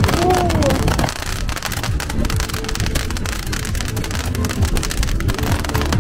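Crackling fireworks: glitter shells bursting into showers of sparks, giving a dense, continuous crackle like heavy rain, with music underneath.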